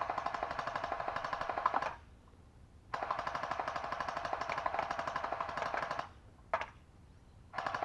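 Kris Vector electric gel blaster, run on an 11 volt battery, firing full-auto bursts: a fast, even rattle of the motor-driven gearbox cycling shots. One burst stops about two seconds in, another runs for about three seconds, a brief blip follows, and a new burst starts near the end.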